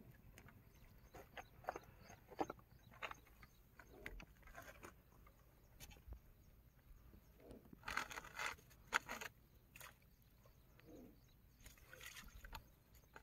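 Faint, scattered rustles and clicks of a caught rohu and its hook and tackle being handled, with a louder cluster of rustling about eight seconds in.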